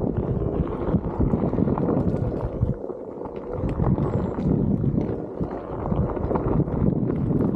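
Onewheel GT S-series electric board riding up a dirt trail: its tyre gives a dense, steady rumble over the packed dirt, with small ticks of grit and stones and a faint motor whine that wavers in pitch now and then.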